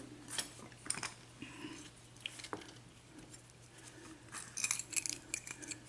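Faint, scattered clicks and light scrapes of small metal lock parts being handled: the plug and key of a gutted pin-tumbler padlock.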